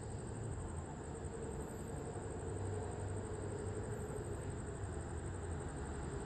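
Diesel train engine running with a steady low hum.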